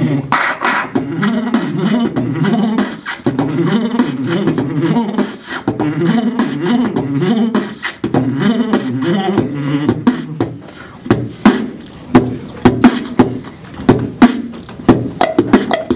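Beatboxing into a handheld microphone. For about the first ten seconds a hummed, wavering bass line runs under the beat, then sharp drum-like kick and snare hits take over.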